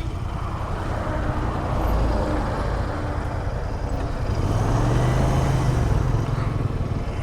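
Road traffic on a highway: a steady rumble of passing vehicles, with a heavy vehicle's low engine hum swelling past and fading about five seconds in.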